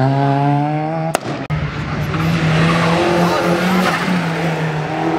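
Competition car engine under hard acceleration, its pitch climbing, broken by a sharp crack about a second in. After a brief drop it runs on at a steady pitch.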